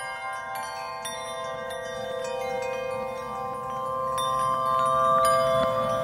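Chimes ringing: many overlapping sustained bell-like tones with frequent light strikes, slowly growing louder.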